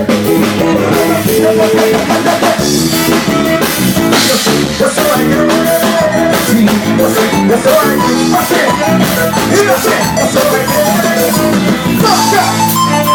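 Live gospel band playing an instrumental break, a drum kit keeping a steady beat under the other instruments.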